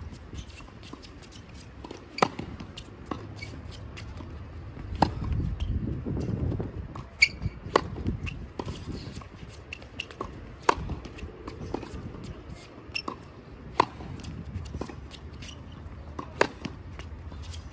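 Tennis rally on a hard court: sharp pops of a tennis ball struck by a racket every two to three seconds, with fainter hits and ball bounces in between. A low rumble rises briefly in the middle.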